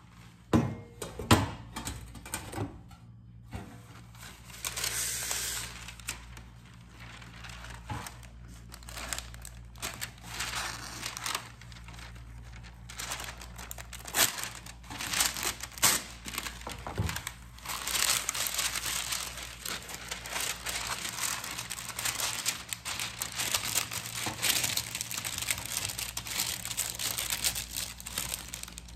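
A whisk stirring thick banana cake batter in a plastic tub: irregular scraping and clicking of the wires against the plastic, a few separate knocks at first, then busier and louder from about four seconds in.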